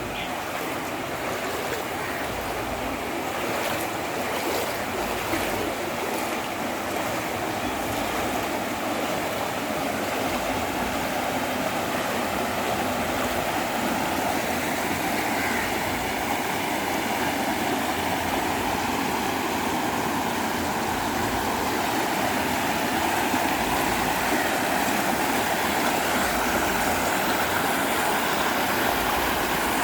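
Steady rush of flowing floodwater, growing gradually louder.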